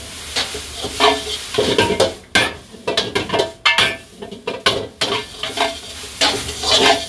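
Metal ladle scraping and clanking against a wok in quick, irregular strokes as boiled noodles and vegetables are tossed and stir-fried, over a steady sizzle of frying.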